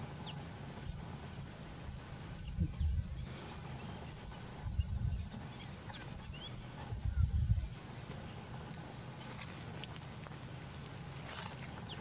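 Outdoor ambience with a steady low hum, broken three times by short low rumbles a couple of seconds apart; faint high bird chirps and a thin rapid trill sit in the background.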